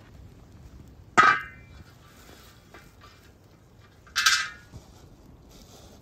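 Two sharp metal clanks, each with a short ringing tail, about three seconds apart. A wide steel cooking pan is being handled over an open wood fire.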